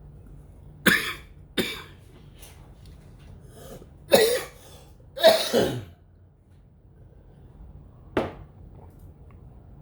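A person coughing: two short coughs about a second in, two longer and louder coughs or throat-clearings around four to five seconds, and one more short cough near the end.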